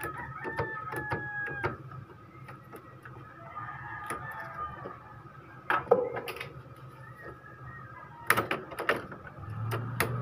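Scattered plastic clicks and knocks as an opened Epson L3210 ink-tank printer is handled, over a faint steady low hum. Near the end a louder low hum starts and grows.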